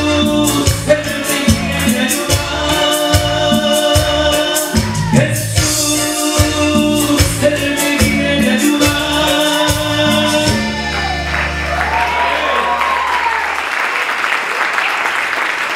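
A man sings a Christian worship song into a microphone over backing music with a steady beat and bass. About two-thirds of the way through, the song ends on a held low bass note and the congregation applauds.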